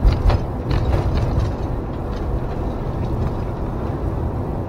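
Engine and road rumble inside a moving motorhome's cab, with a few sharp knocks and rattles in the first second and a half.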